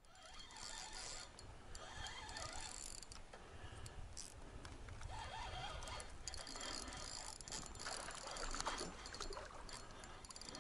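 Water lapping against the hull of an inflatable boat, with the light ticking and whirring of a spinning reel being wound in on a lure retrieve.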